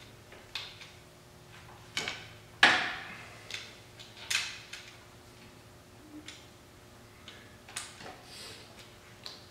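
Ratchet and socket clicking and knocking as bolts on the engine are turned a quarter turn each for angle tightening. The clicks come irregularly, with the loudest about two and a half seconds in and a short cluster of clicks at about four seconds.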